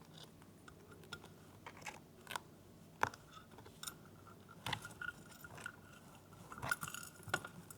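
A grey-breasted conure nibbling and crunching a treat with its beak: scattered soft clicks and crunches, the sharpest about three seconds in and a small cluster near the end.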